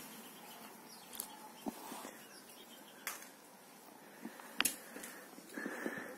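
Faint, scattered light clicks and a brief soft rustle near the end as a Siberian husky picks up a rubber screaming-chicken toy in her mouth; the toy does not squawk.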